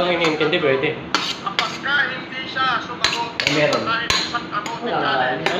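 A metal spoon knocking and scraping against a metal rice-cooker inner pot as cooked rice is tapped out into a bowl. It comes as about ten sharp, irregularly spaced clanks.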